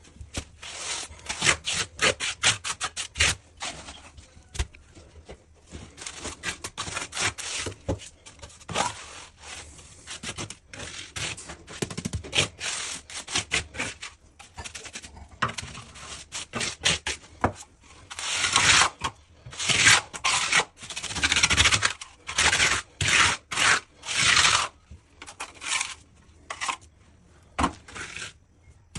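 Rapid, repeated hand strokes scraping and rubbing across wooden parquet, in quick short runs, with longer, louder strokes past the middle. This is part of repairing a water-damaged patch.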